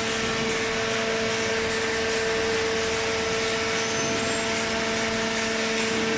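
A machine running steadily: a constant hum with a steady whine over an even hiss.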